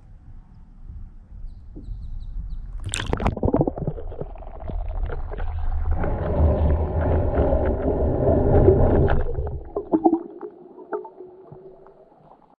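A camera plunging into a lake with a splash about three seconds in, then muffled underwater rumbling, sloshing and gurgling picked up through the submerged camera, fading away near the end.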